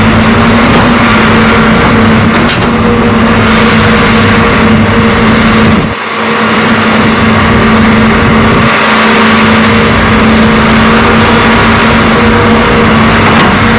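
Heavy diesel machinery running steadily under load, with a constant droning hum. The level dips briefly about six seconds in.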